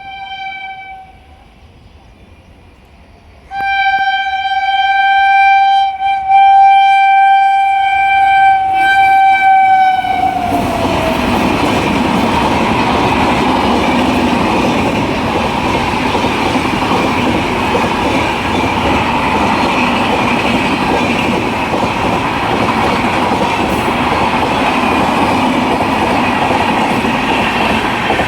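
WAP-7 electric locomotive's horn: the end of one blast, a pause, then a long blast of about seven seconds whose pitch drops as the locomotive passes. Then the loud, steady rush of the express's coaches running past at full speed.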